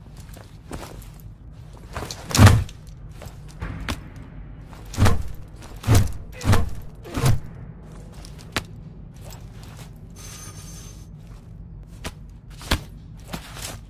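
Sledgehammer blows landing with heavy thuds: one about two and a half seconds in, then four in quick succession, with lighter knocks in between.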